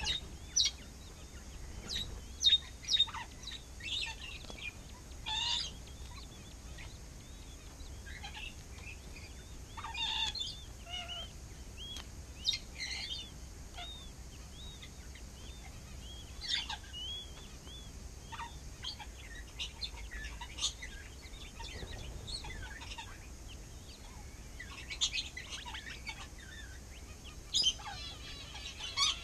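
King quail chirping: short high peeps and chirps, some rising and falling, scattered irregularly over a faint low steady hum.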